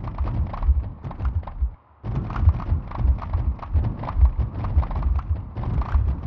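Sonified earthquake data: a dense, irregular stream of low thuds laced with sharp clicks. Each one is a sample of a recorded seismic waveform triggered by a single tremor of the swarm, its pitch set by the quake's depth and its length and loudness by its magnitude. The stream stops briefly just before two seconds in.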